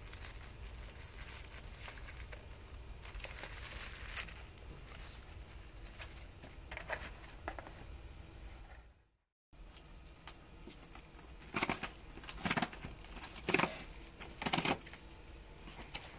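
Tissue paper rustling and crinkling as a packaged disc case is handled and settled into a small cardboard box. After a brief dropout, a flat cardboard box is handled on the floor, with four sharp cardboard knocks and scrapes about a second apart.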